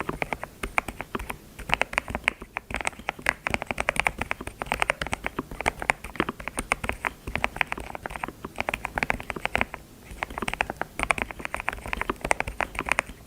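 Fast typing on a computer keyboard: dense runs of sharp key clicks, with brief pauses between flurries.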